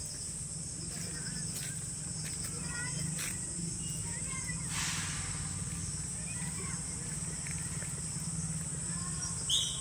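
Steady high-pitched drone of insects in the trees, with scattered brief bird chirps and a low steady hum underneath; a sharper, louder call stands out near the end.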